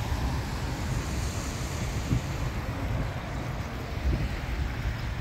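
Wind buffeting the microphone with a low rumble, over the hiss of car tyres on a wet road as an SUV drives past.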